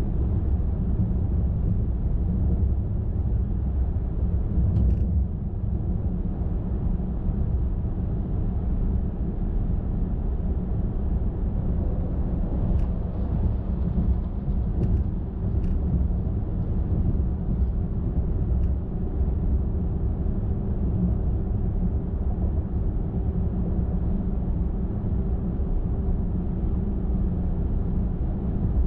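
Steady low rumble of a car driving on a highway: tyre and engine noise, with a few faint ticks and, in the second half, a faint steady hum.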